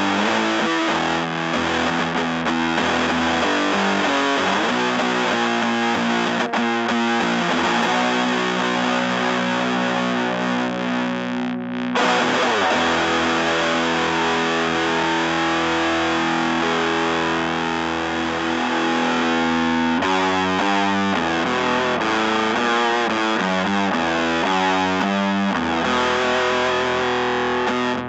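Electric guitar played through a fuzz pedal: heavily distorted, sustained chords and riffs, with a short break about twelve seconds in and choppier, rhythmic chords in the later part.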